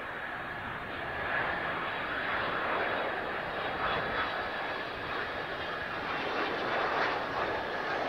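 Kawasaki C-2 transport's two General Electric CF6 turbofan engines on landing approach: a steady jet roar with a faint high whine, growing a little louder about a second in.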